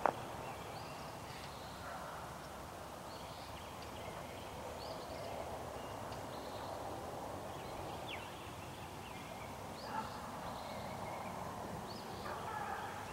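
Hounds baying faintly in the distance, short scattered cries over a steady background hiss of wind and woods. A sharp click comes right at the start and a small knock about ten seconds in.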